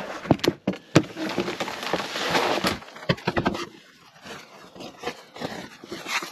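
Snow crunching and scraping as it is packed by hand along the base of an ice-fishing shanty's wall to seal it against the wind. Dense crackling for about three seconds, then fewer, quieter crunches.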